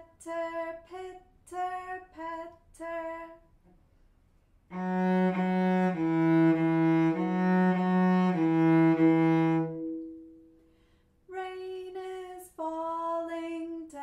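A cello bowed in a short phrase of about seven notes, the last one held and left to ring away. Before it, and again near the end, a woman's voice sings short, clipped syllables.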